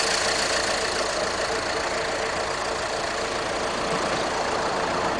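Vehicle engine idling steadily under an even hiss, with a faint steady hum.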